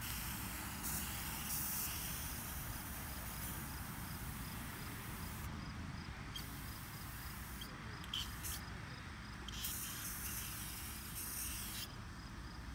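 Aerosol spray-paint can hissing as paint is sprayed, in long bursts with a few short breaks, stopping about a second before the end.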